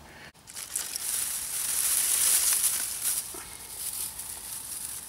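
A steady high hiss as the campfire is lit. It swells to its loudest about two seconds in, then fades and stops abruptly.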